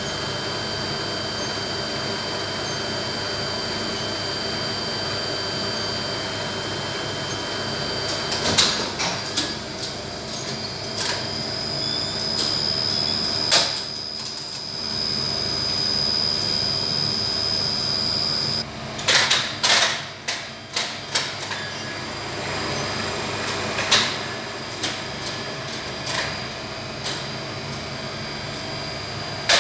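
Machine-room sound of a 1971 Flohr Otis lift with a DC gearless machine and relay controller: a steady running hum while the car travels. From about eight seconds in come irregular sharp clicks and clacks of relays and selector contacts switching as the lift stops and is dispatched again.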